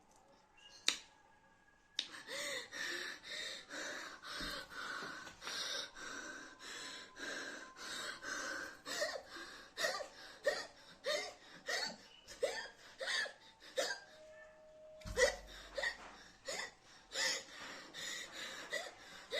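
A woman gasping and hiccupping in quick, voiced catches of breath, about two a second, starting a couple of seconds in with a short break near the end. Her breathing is labored, with hiccups and breathlessness brought on by eating an extremely hot chili chip.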